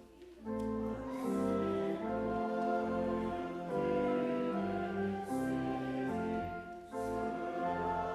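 Church organ playing the closing hymn in held chords, phrase by phrase, with short breaks between phrases near the start, about halfway through and near the end.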